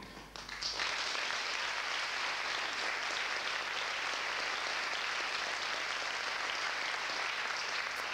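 The last chord of the band dies away, then a theatre audience breaks into steady applause about half a second in.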